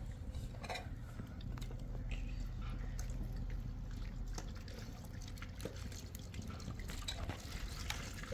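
Water poured from a plastic pitcher over onions and a cucumber on a metal plate, splashing and dripping into a plastic bowl below as the vegetables are washed.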